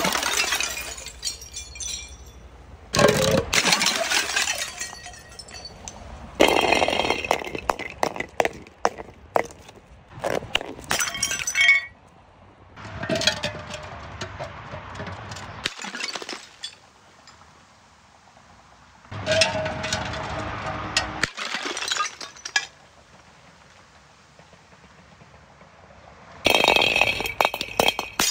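Glass bottles breaking, with crunching and clinking of glass shards. It comes in several separate bouts a few seconds apart, with quieter stretches between them.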